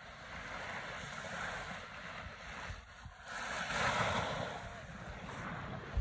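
Wind blowing over the microphone with sea waves washing, swelling louder about four seconds in. A brief knock comes right at the end.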